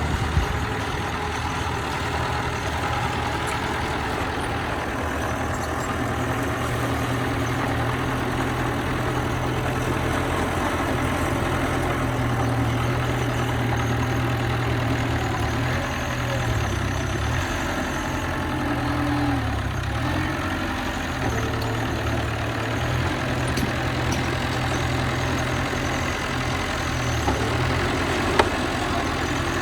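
Bulldozer's diesel engine running steadily, its low note dipping and rising for several seconds in the middle. There is a sharp knock just after the start and another near the end.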